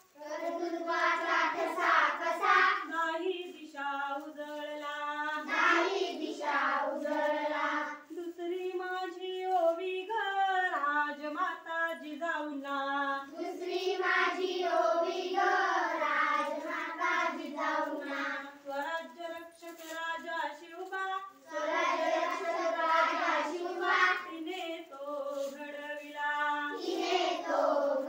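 A group of children singing a Marathi song together, voices only.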